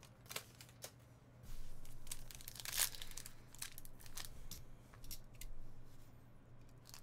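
Foil wrapper of a trading-card pack crinkling and tearing as it is handled and opened. A couple of light clicks come first, then a few seconds of crackling with one sharper tear about three seconds in.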